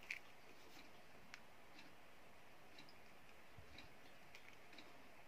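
Faint, scattered small clicks and taps from handling a plastic breadboard and clipping alligator-clip test leads onto resistor leads, with one sharper click right at the start.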